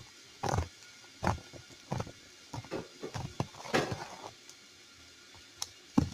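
Slime being squeezed and pressed by hand, giving a run of irregular wet squelches and small air-bubble pops.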